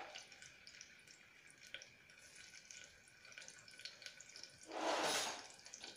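Sunflower oil sizzling faintly with scattered small pops as chopped ginger and garlic fry in a pressure cooker, with a louder hiss for about half a second around five seconds in.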